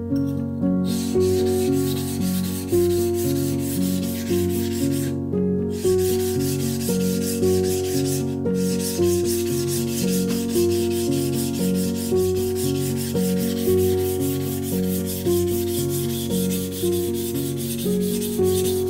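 Background music over continuous scratchy abrasive rubbing, hand-sanding or stone work on the deba knife, which stops briefly about five seconds in and again around eight seconds in.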